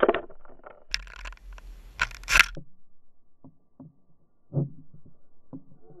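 House finches fluttering and landing at a seed feeder close by. There are loud wing flutters at the start and a burst of wing buffeting about a second in, then light taps and scrapes of beaks and feet on the plastic feeder tray.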